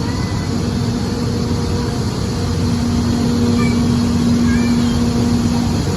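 EF64 electric locomotive hauling a train out of a station: a heavy low rumble with a steady hum that fades in and out, holding longest over the second half.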